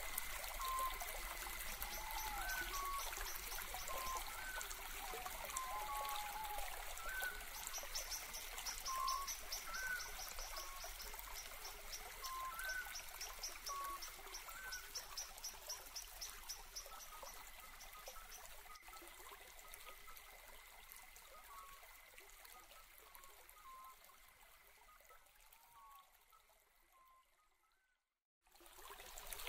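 Background nature ambience of trickling, flowing water with a string of short repeated chirps and a fast high trill. It fades out near the end.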